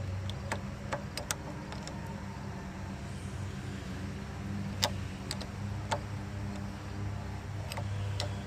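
Irregular metallic clicks and ticks of hand tools working on a car's battery terminal clamps, over a steady low hum.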